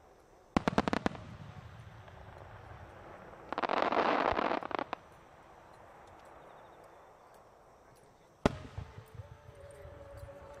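Large No. 10 (about 30 cm) aerial firework shells going off: a quick cluster of sharp bangs, then a loud dense crackling rush lasting over a second, and another sharp bang near the end followed by a few smaller pops.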